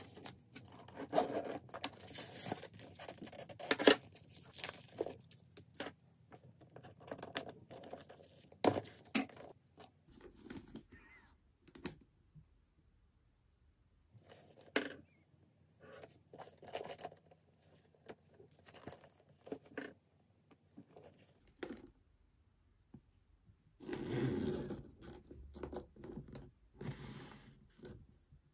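Tissue-paper stuffing and plastic wrapping being pulled out of a leather handbag and handled: intermittent rustling and crinkling with small clicks. There is a quiet stretch about halfway through and a denser burst of rustling near the end.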